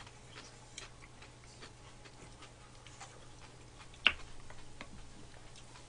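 Faint clicks of chopsticks and spoons against bowls and the pan while eating, with one sharper click about four seconds in.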